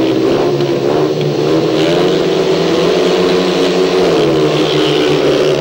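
Four speedway bikes, each with a 500cc single-cylinder methanol-burning engine, revving hard together at the start gate, then accelerating away as the race starts. The pitch wavers up and down with the throttle.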